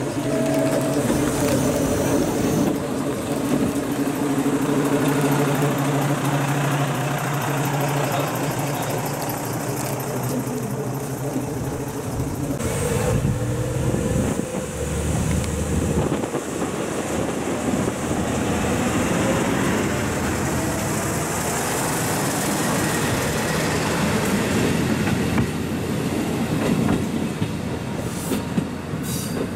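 Kiha 125 single-car diesel railcar with its engine running, first steady, then working as the car moves off and travels down the line, with the wheels clattering on the rails.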